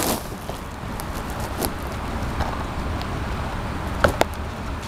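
Steady low rumble of distant road traffic, with a few sharp clicks of camera handling; the loudest two come about four seconds in, as the camera starts to pan.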